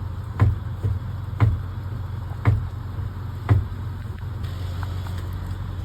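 Diesel semi-truck engine idling with a steady low hum. Four sharp knocks come about a second apart over the first four seconds, then stop.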